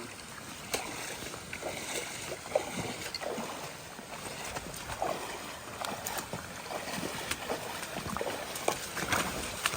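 Footsteps squelching and splashing through wet, muddy ground, with irregular sloshes and knocks.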